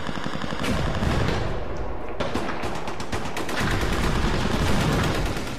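Battle sound effect of rapid machine-gun and rifle fire, dense volleys of shots that grow thickest in the second half.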